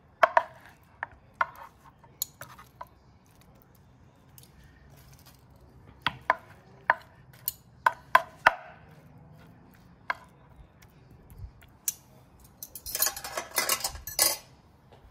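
Metal fork and spoon clicking and scraping against a wooden board as they lift cooked fish flesh off the bones. The taps come singly and scattered, then a quick, dense run of scraping and clicking near the end is the loudest part.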